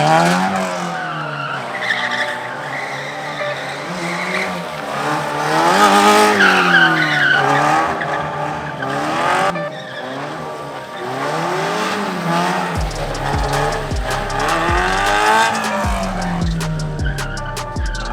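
Toyota JZX drift car's engine revving hard, its pitch climbing and falling several times as the throttle is worked, with tyres squealing through the slides. Music plays underneath, most noticeably in the last few seconds.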